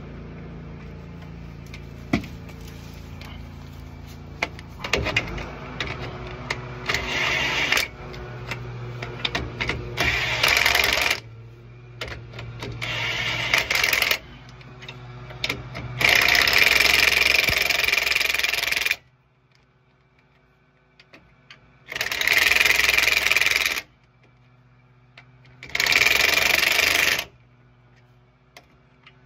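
A power wrench runs in repeated short bursts of one to three seconds, about six times, tightening the sway bar link end and bushing nuts under a truck. Before the first burst there is a steady low hum with scattered clicks.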